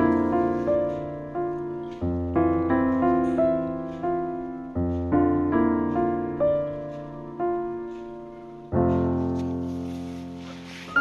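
Background piano music: a slow melody of single struck notes over deep bass notes, with a long chord left to fade near the end.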